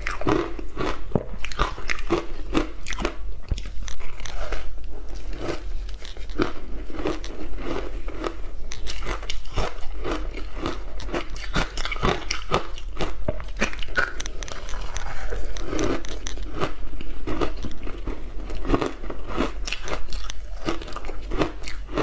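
Hard frozen ice coated in matcha powder being bitten and chewed: a dense, continuous run of sharp cracks and crunches.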